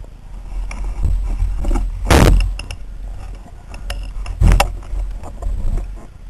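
Underwater water noise picked up through a camera housing as a freediver swims: a low rumble of moving water with scattered clicks, and two louder rushing bursts about two seconds in and again about four and a half seconds in.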